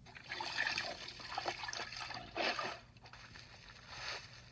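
Sound effect of a floor being cleaned with a long-handled tool, played back through a device speaker: several noisy swishing strokes with a short break about three seconds in, over a steady low hum.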